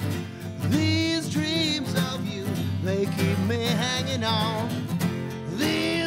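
Live acoustic country-folk band music: acoustic guitar strummed in a steady groove, with a wavering melody line held over it twice, in a gap between sung lines.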